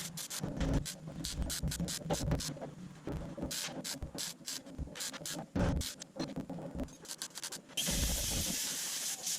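Irregular mechanical clicking and clattering, then a steady hiss that begins about eight seconds in.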